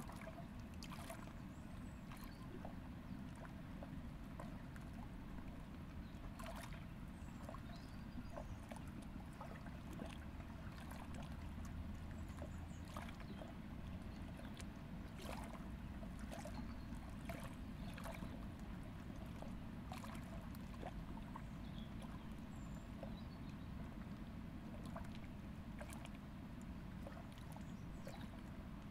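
Faint river water lapping at a rocky bank: small, irregular splashes over a low, steady rumble, with a few faint, high bird chirps now and then.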